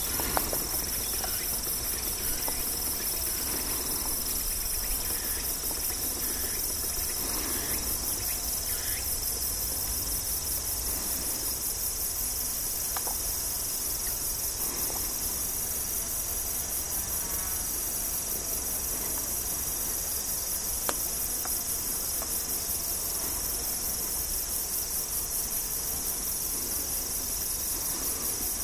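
A steady chorus of singing insects: a continuous high-pitched trill with a fine, rapid pulse.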